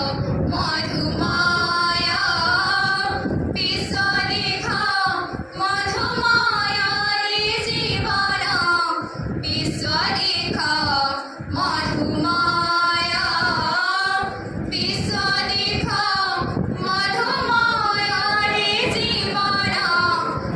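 A group of young women singing an Odia song together, unaccompanied, into a lectern microphone, in sung phrases with brief pauses between them.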